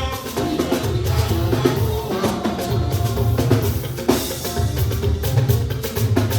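Band music driven by a drum kit, with bass drum and snare hits over a heavy, repeating bass line.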